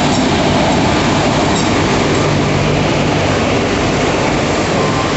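Indian Railways diesel locomotive passing close by at low speed, its engine running with a steady hum, then passenger coaches rolling past with continuous wheel and rail noise.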